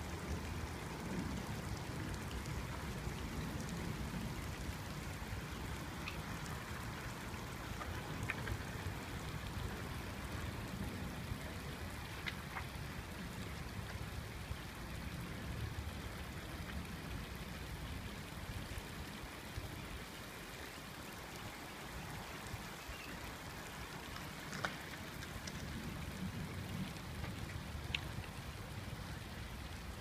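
Water of a concrete fountain pool spilling over stepped ledges, a steady pattering splash and trickle, with a few faint clicks.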